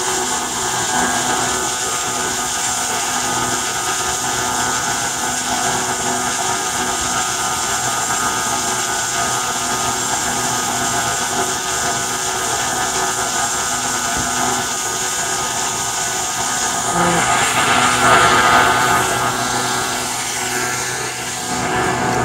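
An engine running steadily with a droning whine of several fixed tones, swelling louder for a couple of seconds near the end.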